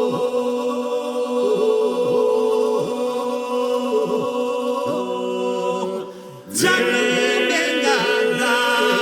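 Albanian folk polyphony sung by a group without instruments: voices hold a steady drone under a sung line. The sound drops away about six seconds in, and a new phrase starts with a voice sliding up over the drone.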